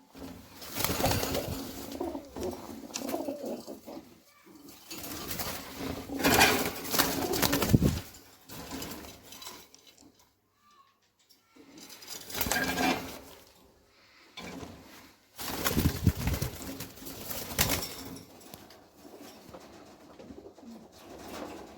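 Pigeons cooing in bursts separated by short quiet gaps.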